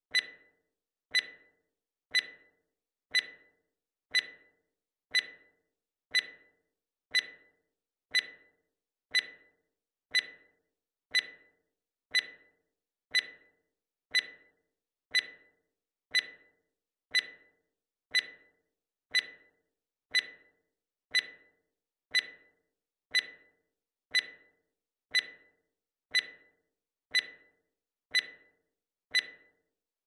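Digital timer beep: a short, sharp electronic beep once every second, each fading quickly, marking each second of the count.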